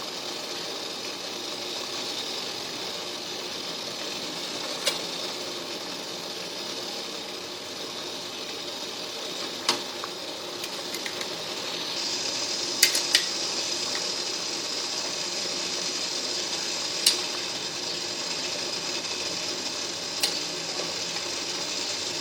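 Food cooking on a stove: a steady hiss that gets louder about twelve seconds in, with a few sharp clicks of utensils against cookware.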